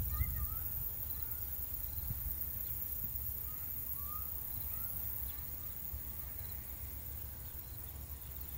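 Countryside ambience: a few short rising bird chirps and a steady high insect drone over a low rumble.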